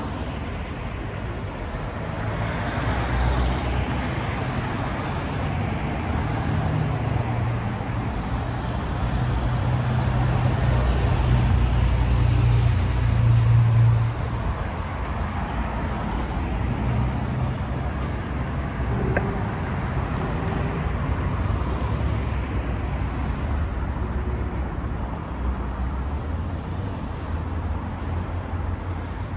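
Road traffic on a town street: steady engine and tyre noise. A vehicle's engine hum grows louder to a peak about halfway through, then drops off sharply.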